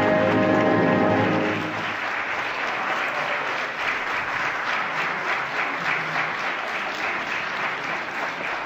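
The last held chord of an opera aria with orchestra ends about a second and a half in. Sustained audience applause follows.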